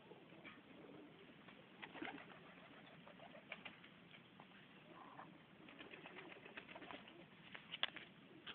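Serbian highflyer pigeons cooing faintly, with scattered light clicks and scuffs; one sharper click comes near the end.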